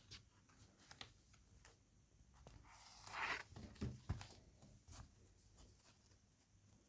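Faint indoor handling noises: scattered light clicks, a brief rustle about three seconds in, then two soft low thumps.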